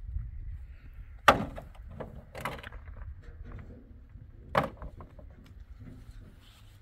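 Three sharp knocks of hard objects striking, spread over a few seconds, with lighter clatter between them over a low steady rumble.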